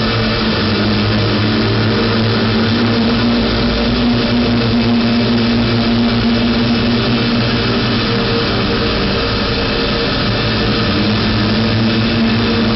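Live experimental electronic noise music: a loud, unbroken drone of dense hiss with several held low tones beneath it. The lowest held tone drops out for a couple of seconds about two-thirds of the way through, then returns.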